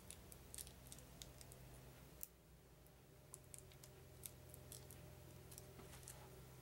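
Near silence over a low steady hum, with scattered faint clicks and light taps as a deck of game cards is handled.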